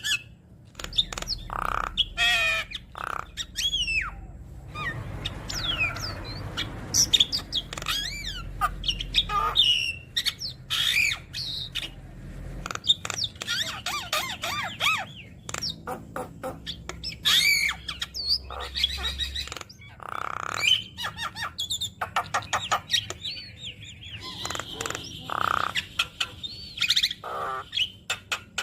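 Javan myna singing a long, varied run of whistled notes that glide up and down, harsh squawks and fast clicking notes, packed with mimicked calls of other birds.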